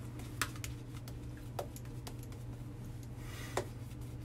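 Shaving brush with a 24 mm panda knot working lather on a wet scalp: a few light scattered clicks and a short brushing swish near the end, over a steady low hum.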